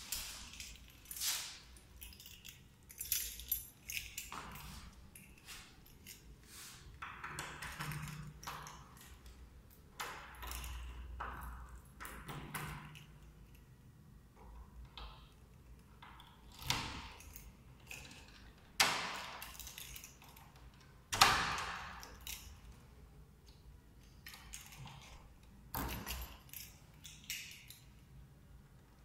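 A bunch of keys jangling and clinking at a front door's lock, with scattered metal clicks and a few louder sharp clacks in the second half.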